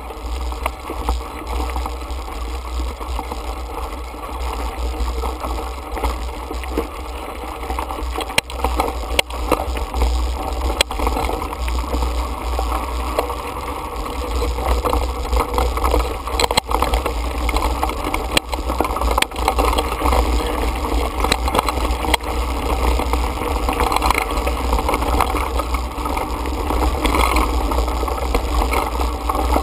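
Mountain bike riding over a rocky dirt trail, heard through a bike- or rider-mounted action camera: a steady wind rumble on the microphone, with rattling and frequent sharp knocks as the tyres hit stones and the bike shakes over the rough ground.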